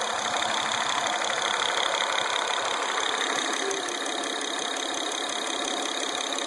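Acura TL engine running steadily with a fast, even ticking or knocking in its sound, a noise the owner says doesn't sound right.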